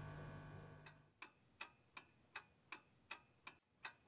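Clock-ticking sound effect: short, sharp, evenly spaced ticks, a little under three a second, starting about a second in. A faint hiss fades away before the first tick.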